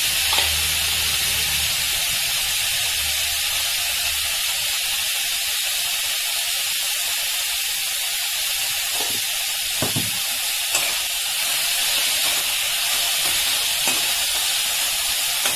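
Drumstick (moringa) leaves sizzling steadily as they fry in oil in a steel pan, with a metal spatula knocking against the pan a few times as they are stirred.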